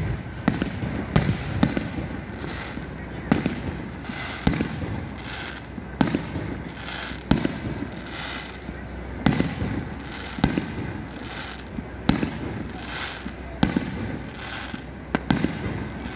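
Aerial fireworks bursting overhead: about a dozen sharp bangs at uneven intervals of roughly a second or so, each trailing off in a short rumble.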